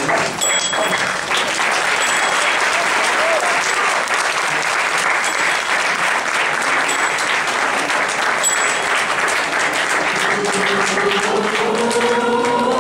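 Audience applauding, a dense steady clapping. About ten seconds in, a group of voices starts singing over it.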